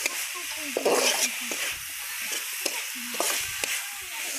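Steel spatula stirring and scraping snails frying in masala in a steel kadai, with the oil sizzling steadily underneath. Several sharp metal-on-metal scrapes come through the stirring.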